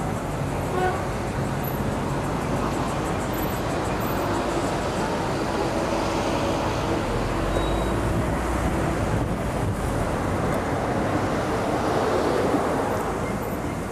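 Street traffic noise: motor vehicles running past on a city road as a steady rush. It swells a little near the end as a van passes close by.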